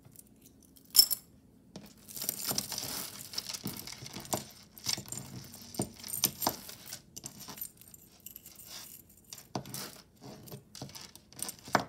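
Jewelry pieces clinking and jangling as they are handled and sorted, with many small sharp clicks of metal and beads knocking together. A stretch of rustling, like a bag being rummaged through, comes about two seconds in.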